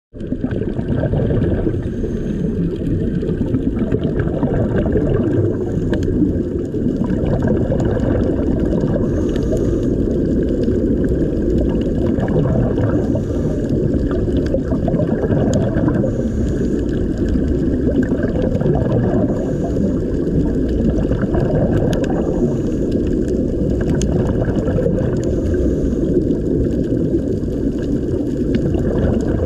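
Muffled underwater rush of water and bubbling, heard through a submerged camera, swelling about every three seconds.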